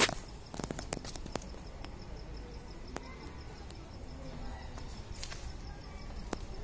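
Quiet outdoor ambience: scattered soft clicks over a low rumble, with a faint, evenly spaced high-pitched ticking throughout.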